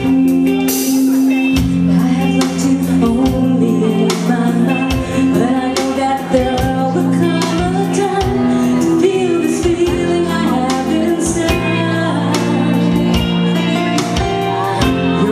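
Live band playing the instrumental introduction to a song, with guitar, a melody line over sustained chords and a steady beat, before the vocals come in.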